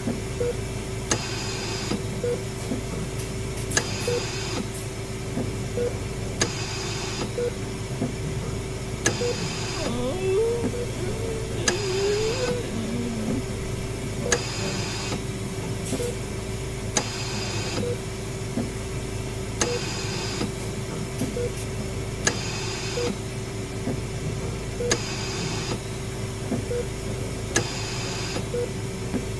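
Hospital ambience sound effect: a short electronic beep about once a second like a patient monitor, and a hiss that comes every two and a half seconds like a ventilator's breath, over a steady electrical hum. A few faint wavering, wailing tones slide up and down around a third of the way through.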